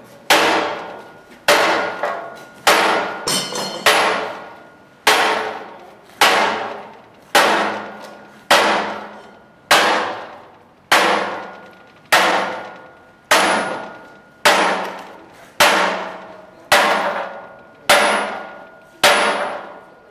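Heavy hammer blows on a locomotive firebox tube-sheet plate being flanged by hand, in a steady rhythm of about one blow every 1.2 seconds. Each blow rings with a metallic tone and dies away before the next.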